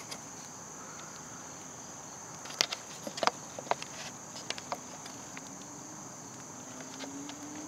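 Steady high-pitched insect chorus buzzing in the woods, with a run of sharp clicks and taps between about two and a half and five seconds in, and a faint rising hum near the end.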